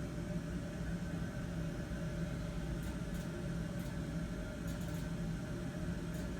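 Furnace fan motor humming steadily, with a few faint clicks about halfway through.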